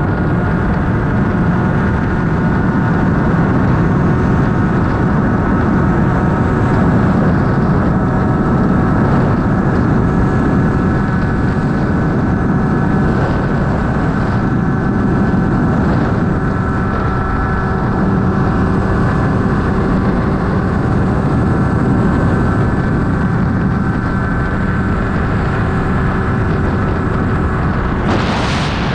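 Tuned Gilera Runner 50 scooter's two-stroke single-cylinder engine with a Stage6 exhaust, held at full throttle near top speed: a steady, high-revving drone over wind and road noise. About a second before the end a rush of wind noise swells up as the camera is lifted into the airstream.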